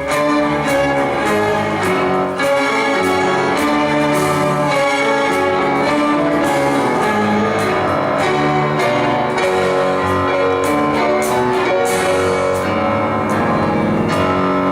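Piano and orchestra playing together: a piano concerto-style piece with strings and brass sustaining chords under a moving piano part.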